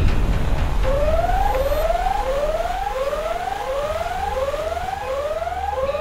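A whooping alarm siren: eight short upward sweeps in pitch, about three every two seconds, starting about a second in, over a steady low rumble.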